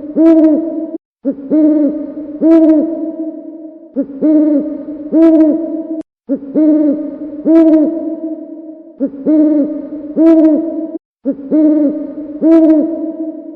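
Owl hooting sound effect: short groups of hoots, each rising and falling in pitch, repeated as an identical loop with brief breaks about every five seconds.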